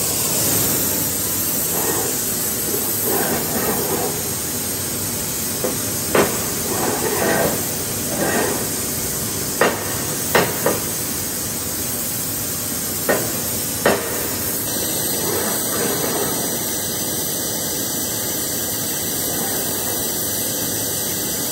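Gas torch hissing steadily as it heats a starter ring gear, with about six sharp hammer knocks on metal in the middle stretch.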